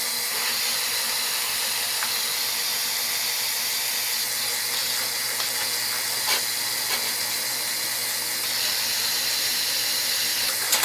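Drill press running steadily as its bit cuts holes in a steel plate: a steady high hiss over a low motor hum, with a few faint clicks.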